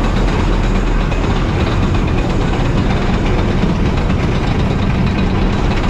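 Lift of a shoot-the-chutes water ride hauling a loaded boat up the incline: a steady mechanical rumble with a low hum and a continuous clattering rattle.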